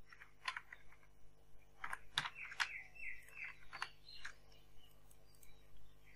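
Computer keyboard keys tapped at an irregular pace as a short hex colour code is typed. Partway through, a brief run of high chirp-like tones is heard.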